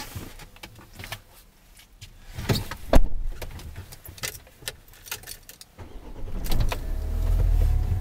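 Clicks and knocks of keys and handling in a Renault Master van's cab, then about six and a half seconds in the van's diesel engine starts and settles into a steady idle.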